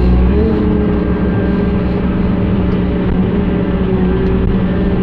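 Excavator diesel engine and hydraulics running steadily under working load, heard from inside the cab, with a low hum and steady tones that shift slightly in pitch about half a second in as the boom swings.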